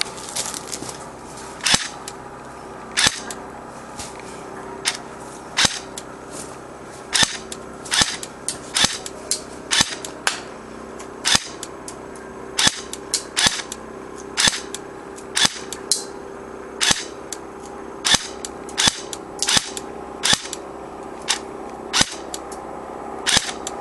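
Cyma G18 electric airsoft pistol firing single shots on semi-automatic, sharp snapping clicks at an uneven pace, now and then two in quick succession.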